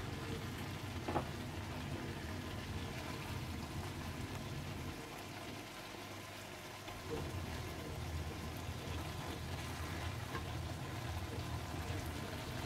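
Chicken, onion, capsicum and tomato frying in oil in a pan, a steady soft sizzle, with a low hum underneath and a faint clink about a second in.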